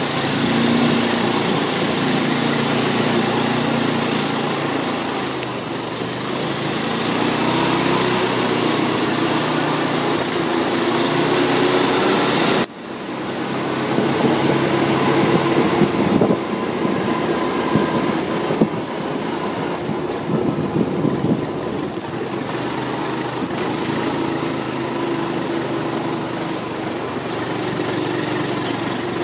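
Quad bike engine running as it drives along, its pitch rising and falling with speed. The sound drops out briefly about halfway through, then carries on with a few short knocks.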